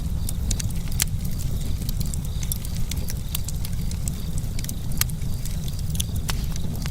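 Campfire burning: wood crackling and snapping in sharp, irregular pops over a steady low rumble from the flames.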